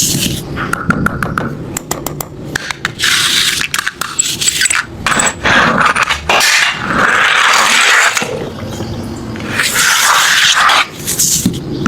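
Die-cast toy cars rolling and scraping along a track in several runs of a second or two each, with sharp clicks and clacks between them.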